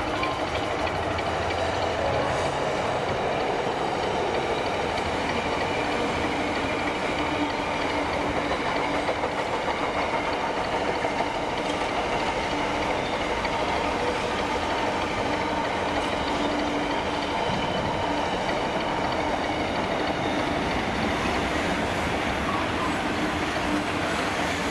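Container freight train passing, the steady, unbroken noise of its wagons rolling on the rails.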